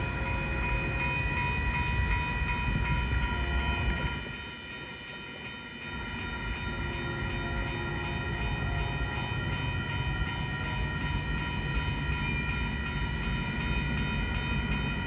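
Railroad crossing warning bells ringing steadily while the gates are down, over a low rumble that briefly drops away about four seconds in.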